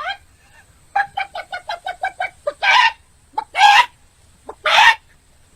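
Chicken clucking: a quick run of about eight short clucks, then three loud drawn-out squawks about a second apart.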